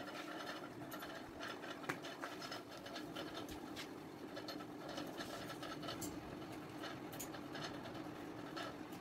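Rustling and light irregular clicks of hands handling upholstery fabric and a cloth tape measure, over a steady low hum, with one sharper click about two seconds in.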